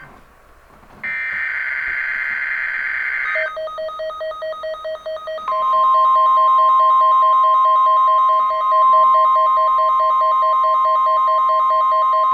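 NOAA Weather Radio weekly test tones. After a short lull, a burst of warbling digital header data plays for about two seconds. A fast pulsing beep then starts, and about five seconds in a steady 1050 Hz warning alarm tone joins it and holds.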